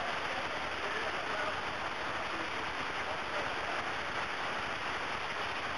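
Canyon stream water rushing and splashing down between boulders: a steady, even rush of white water.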